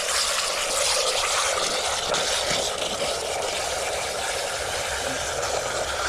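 Garden hose water running steadily into a diesel particulate filter canister and pouring out the bottom onto gravel, a constant splashing rush: the clogged filter being flushed of soot with plain water.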